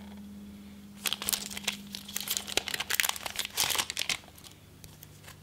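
Foil wrapper of a Pokémon TCG Primal Clash booster pack crinkling and tearing as it is opened by hand. The crackling starts about a second in, runs densely for about three seconds, then a few last crinkles.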